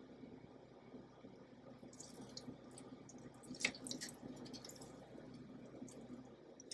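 Faint wet squishing of a knife slicing between the bones of very tender, sauce-glazed baby back ribs, with a few light ticks and one sharper tick a little over three and a half seconds in.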